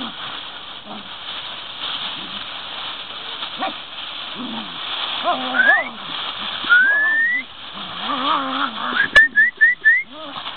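Two small dogs play-fighting: low play growls on and off, a couple of rising whines around the middle, and a quick run of four or five short high yelps near the end.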